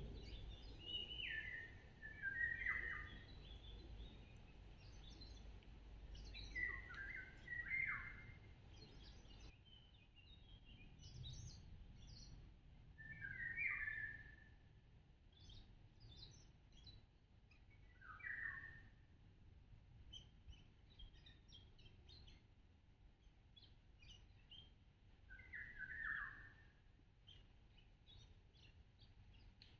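Birds singing: one bird repeats a short song phrase that falls in pitch, every few seconds, with faint high chirps from other birds in between. A low background rumble fades out about a third of the way in.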